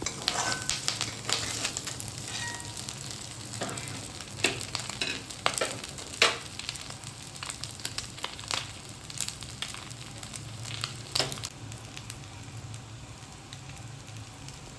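Chicken pieces frying in oil in a pan for chicken varuval, sizzling steadily with frequent sharp crackles and clicks, and some stirring.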